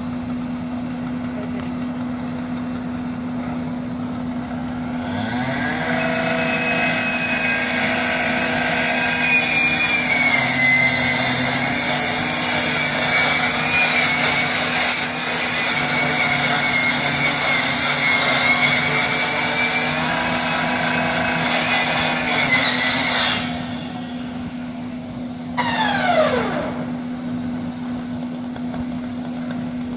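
Firefighter's gas-powered rescue saw spinning up to a high whine about five seconds in and cutting into the burnt pickup truck, its pitch dipping and wavering under load, then stopping abruptly; it briefly revs and winds down a few seconds later. A fire engine's engine and pump hum steadily underneath.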